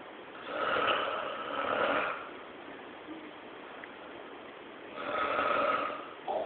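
Snoring from a sleeper: two long snores about four seconds apart, each lasting over a second, with a short faint sound just before the end.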